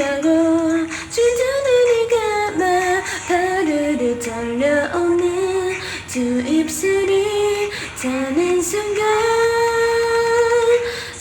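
A solo voice singing a K-pop song over a backing track, the melody moving between short phrases and settling into one long held note near the end.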